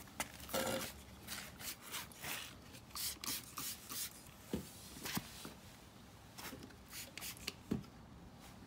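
Hand trigger spray bottle spritzing slip solution onto paint protection film: a quick run of short hissing sprays, thinning out later, with a few soft knocks from handling.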